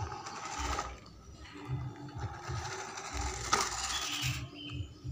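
Homemade RC truck's electric motor and gearbox whirring as it drives. The whirring comes in two stretches, loudest about three and a half seconds in, over background music.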